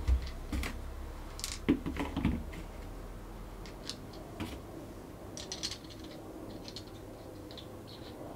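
Small clicks and taps from hands handling rubber-armoured laser rangefinding binoculars, working at the centre hinge and then turning one barrel. A cluster of sharper clicks and knocks comes in the first two and a half seconds, followed by sparse faint ticks.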